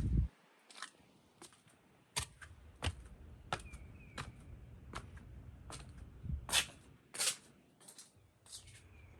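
Footsteps walking, a knock or scuff about every 0.7 seconds, with a couple of louder scuffs near the middle and a faint squeak now and then.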